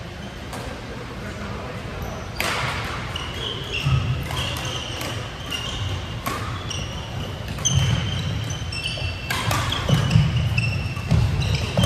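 Badminton doubles rally on an indoor court: sharp racket hits on the shuttlecock every second or two, sneakers squeaking briefly and repeatedly on the court floor, and footfalls thudding. The sound echoes in a large hall.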